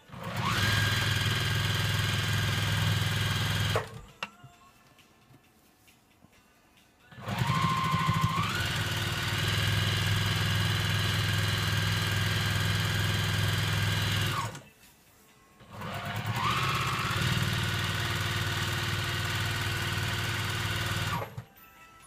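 Juki sewing machine stitching a hem in cotton cloth, run in three bursts of several seconds each with short pauses between. Each run opens with a brief rising whine as the motor comes up to speed, then holds steady.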